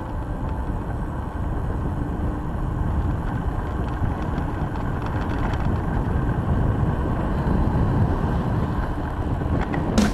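Wind buffeting the bike-mounted camera's microphone together with the rumble of a knobby mountain-bike tyre rolling fast over asphalt, a steady low noise that builds slightly. A couple of sharp clicks right at the end.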